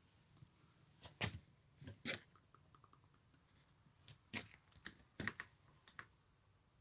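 Wooden floorboards, freshly screwed down to the joists, giving about ten faint short clicks and knocks in loose pairs, with no long creak.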